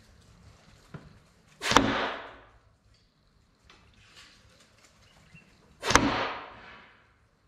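Two blowgun shots about four seconds apart, each heard as a sharp smack as a home-made dart strikes a wooden board, with a short fading tail.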